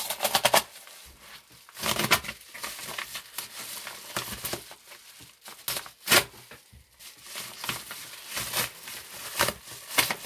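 A padded kraft-paper mailer being slit open with a knife blade and handled. The paper crinkles and rustles in irregular bursts, with sharper crackles near the start, about 2 s in, about 6 s in and near the end.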